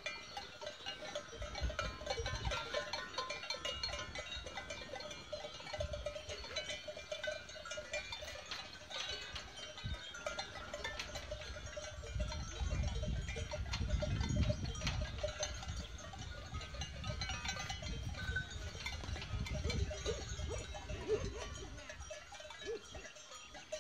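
A grazing goat herd with bells on the animals clinking and clanking continuously, and a few bleats near the end. Low rumbles come and go around the middle of the stretch.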